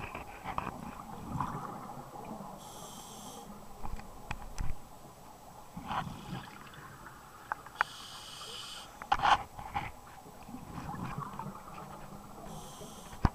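Scuba regulator breathing heard underwater: a hissing inhale three times, about every five seconds, each followed by rushes of exhaled bubbles and a few sharp clicks.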